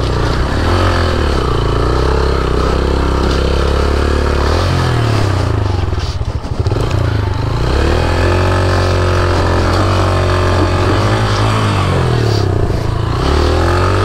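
Motorcycle engine pulling hard over a steep, rough off-road slope, its pitch rising and falling again and again as the rider works the throttle. About six and a half seconds in, a brief dip with a clatter.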